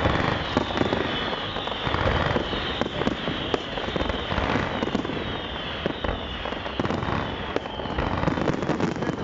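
Fireworks display: a dense, continuous crackle of many overlapping bangs and pops, without a pause.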